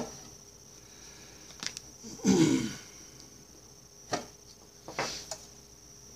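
Light clicks and knocks of clear plastic deli containers being handled and set down on a tabletop, a few scattered taps, plus one short sound falling in pitch about two seconds in.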